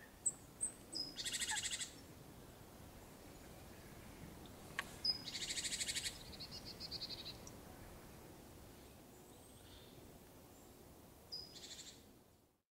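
Forest field recording of songbirds: three short, bright trilling phrases a few seconds apart over a faint hiss of woodland ambience. The recording cuts off abruptly just before the end.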